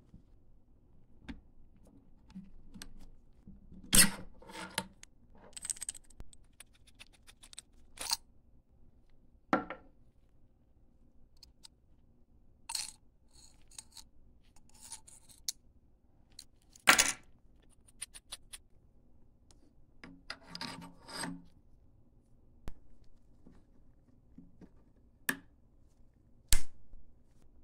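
Metal rifle parts being handled: scattered sharp clicks and knocks with short bursts of scraping and rattling as the storage tube under a Spanish FR8 carbine's barrel is taken off and brass stripper clips are handled from inside it. The loudest are single sharp clacks about a sixth of the way in, a little past the middle, and just before the end.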